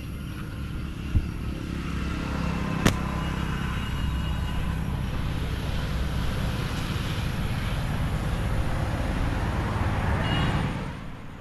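A road vehicle passing, its noise swelling through the middle and dying away near the end, over a steady low rumble. Two sharp clicks in the first three seconds.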